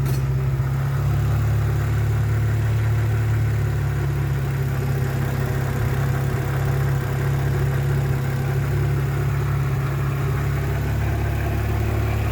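Honda H22A 2.2-litre DOHC four-cylinder, freshly rebuilt with new pistons and rings and its balance shafts deleted, idling steadily on its second start after the rebuild.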